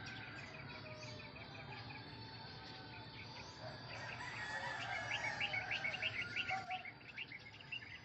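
Birds chirping and calling over a faint steady background, with a run of quick repeated chirps in the middle.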